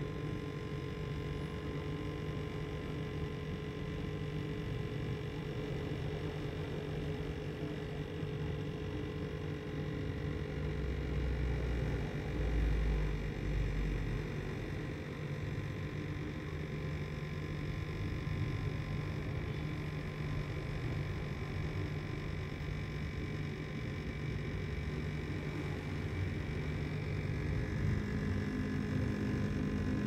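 Steady electrical hum with a few faint higher tones above it. A brief low rumble comes about twelve seconds in.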